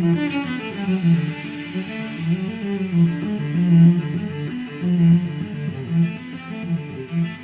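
Instrumental background music: a tune of plucked guitar notes over low strings.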